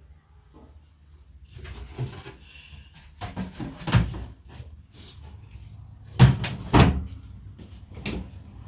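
A series of knocks and clatters, like things being handled and set down, with the two loudest knocks close together about six seconds in.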